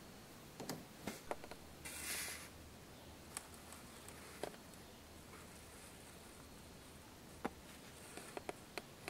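Faint handling noise in a quiet room: a scatter of small sharp clicks, a short rustle about two seconds in, and a faint low hum underneath.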